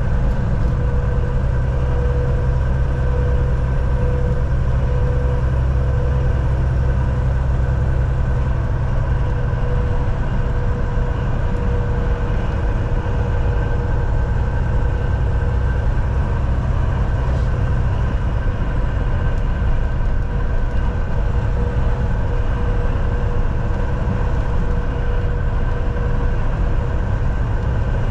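Semi-truck driving at a steady speed: the diesel engine runs with a steady low rumble, mixed with road and tyre noise and a few faint steady tones.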